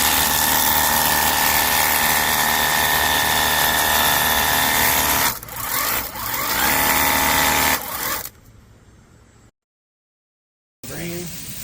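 Ontel Turbo Jet HydroX5 Pro cordless pressure washer running, its motor and pump whining steadily over the hiss of the spray. It stops a little past five seconds in, starts again with a rising whine, and cuts off about eight seconds in.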